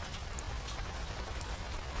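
Steady rain hiss over a low rumble, mixed with an open fire, with two faint sharp crackles.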